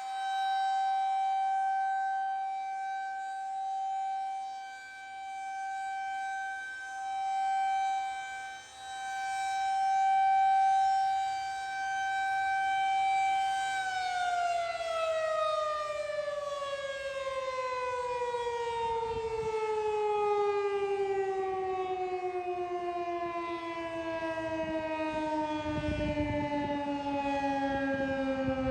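Federal Signal 2001-SRN rotating outdoor warning siren sounding a steady tone that swells and fades in loudness as the head turns. About halfway through it winds down, its pitch falling steadily lower: the siren coasting to a stop at the end of its monthly test.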